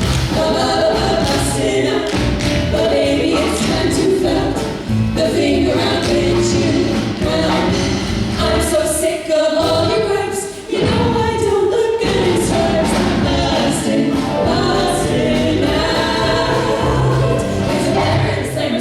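Song with several voices singing together in harmony over musical accompaniment with a steady bass line.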